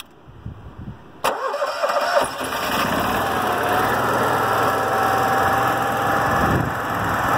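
Onan RV QG 5500 EVAP RV generator starting about a second in on its freshly primed fuel system, then settling into a steady run with a thin steady whine.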